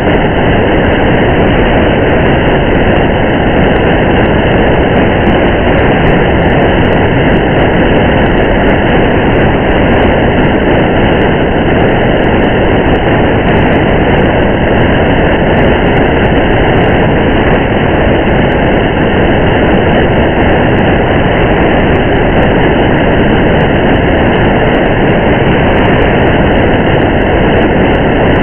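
Steady car driving noise in rain: tyres on a wet road and rain on the car blend into one even, unbroken rush with a low rumble underneath.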